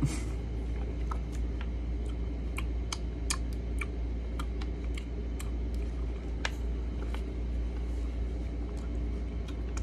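Steady low room hum, with scattered faint clicks and light crinkles as a foil drink pouch is handled and sipped through a straw.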